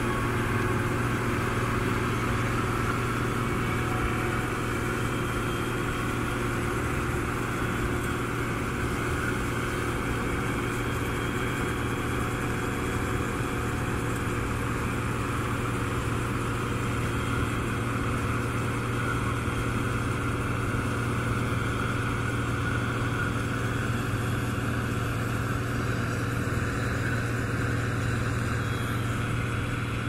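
Massey Ferguson 850 combine running steadily under load as it harvests corn: a constant engine hum with the rush of the working machinery, unchanging throughout.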